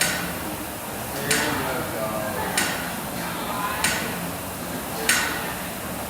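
Background music with a sharp beat hitting evenly about every second and a quarter, over a steady haze of room noise.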